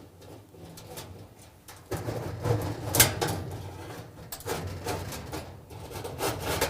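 Metal knocks and scraping as an electric dryer's heating element is slid along the grooves into its sheet-metal housing. The knocking starts about two seconds in, and the sharpest knock comes about a second later.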